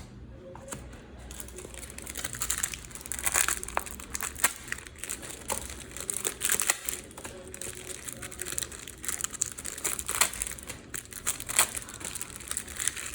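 Trading card packet wrappers crinkling in irregular bursts as the packets are handled.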